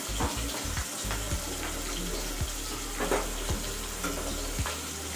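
Fish frying in oil in a steel kadai, a steady sizzle, with a metal spatula scraping and clinking against the pan several times as the pieces are turned.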